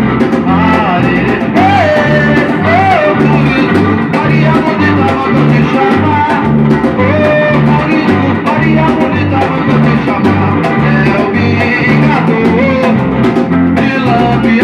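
Band playing a samba-reggae song, with a bass line repeating in a steady rhythm under percussion and melodic lines.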